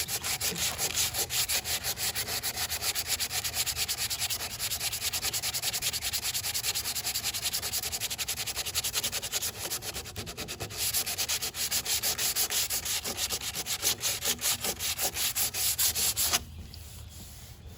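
Sandpaper rubbed by hand over cured Bondo body filler on a car panel, in fast, even back-and-forth strokes. There is a short lull about ten seconds in, and the sanding stops near the end. The filler is being smoothed flush over filled rivet holes.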